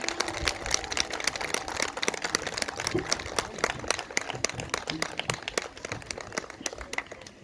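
Audience applauding with dense, uneven clapping that thins out and fades toward the end, as a bandura ensemble's last notes die away.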